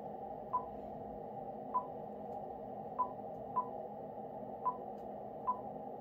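Icom IC-705 transceiver's touchscreen key-press beeps as letters are typed into a CW keyer memory: six short, identical high beeps at uneven intervals, over a steady low hiss.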